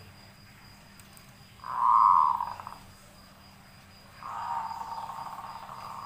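Caged yellow-vented bulbul giving two harsh, buzzy calls: a short loud one about two seconds in, and a longer, quieter one from about four seconds in.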